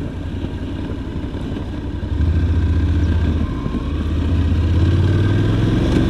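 Honda NC750X parallel-twin motorcycle engine running under way, a steady low drone that gets louder about two seconds in.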